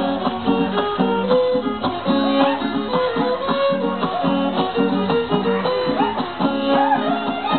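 Live folk string music: a strummed guitar keeps a steady rhythm under a fiddle playing a melody with held and sliding notes.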